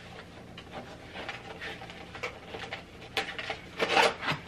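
A small paperboard box being handled and opened: soft rubbing and light taps, then a cluster of louder scrapes and knocks near the end as the box is worked open.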